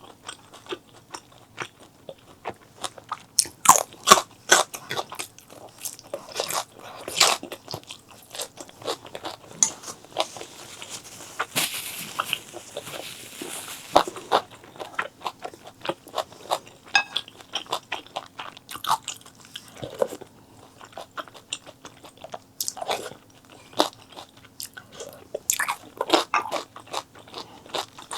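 Close-miked eating: biting and chewing food, with many irregular crisp crunches and moist clicks, and a longer hissy stretch about twelve seconds in. A faint steady hum runs underneath.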